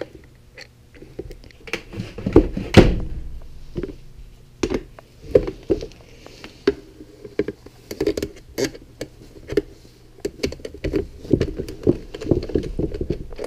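Irregular clicks and knocks of a hollow plastic sensor box being handled while small machine screws and nuts are tightened inside it, the loudest knocks a little under three seconds in.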